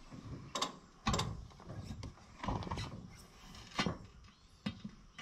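A handful of separate knocks and clanks from hand work on the grain drill's wheel and tire: metal parts and rubber being handled and bumped together.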